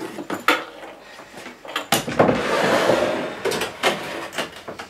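Knocks and clatter as an assembled CNC router is pulled out of a plastic toolbox, with a scraping slide from about two seconds in to three and a half seconds in.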